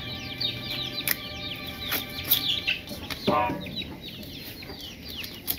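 Chickens clucking, with short, high, falling chirps repeating throughout and a lower cluck a little over three seconds in. A few sharp clicks come in the first half.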